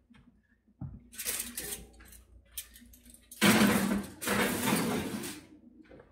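Kitchen handling noise as a loaf pan of bread is put back into the oven: a knock about a second in, then a loud rustling scrape from about halfway through that lasts about two seconds.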